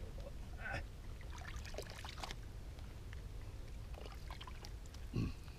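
Small splashes and trickling of river water as hands and a rag are dipped and worked at the water's edge, in scattered bursts, with a short louder thump near the end. A low wind rumble on the microphone runs underneath.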